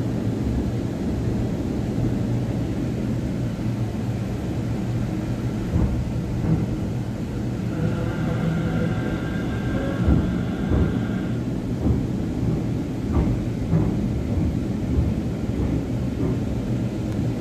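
Delhi Metro train running, heard from inside the carriage: a steady low rumble with occasional knocks. A higher whine comes in for a few seconds around the middle.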